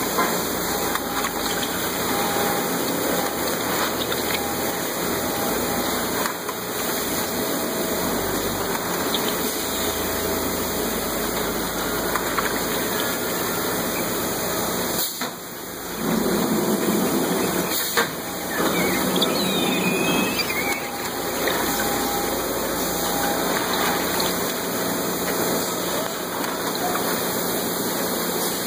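Bag palletizing line running with a steady rushing machine noise. About halfway through it dips briefly, then runs louder for a few seconds, with a single sharp knock among it.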